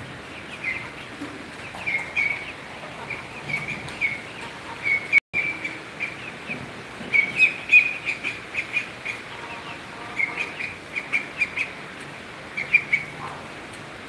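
Ducklings and a chick peeping: short, high chirps repeated over and over in irregular clusters, over a steady background hiss. The audio drops out for an instant about five seconds in.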